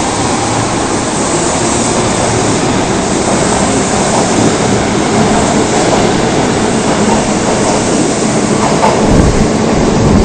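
Osaka Municipal Subway 22 series train pulling out of the station, with steady running noise from its wheels and motors on the track. A brief low rumble comes about nine seconds in.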